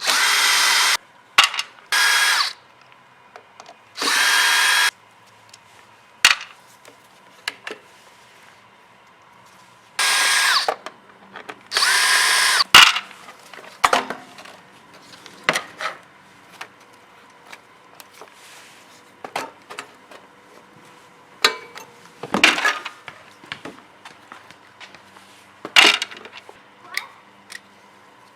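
A power drill running in short bursts of about a second, five times, with a steady whine, followed by scattered light clicks and clinks of tools and metal parts.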